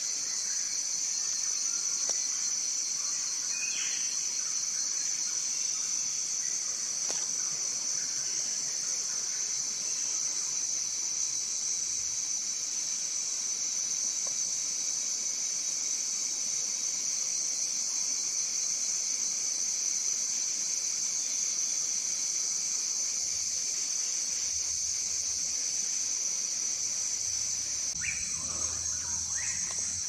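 A steady, high-pitched insect chorus drones without a break. A bird gives a short call about four seconds in, and a couple more near the end.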